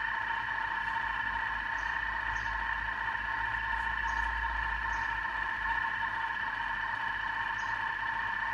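Thermomix TM6 kitchen machine running its thickening program, heating and slowly stirring a custard mix at 100 °C: a steady motor hum with a constant high tone.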